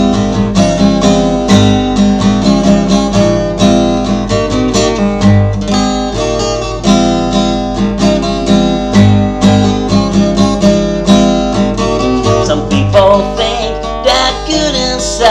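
Acoustic guitar strummed in a steady rhythm, chords with no singing over them.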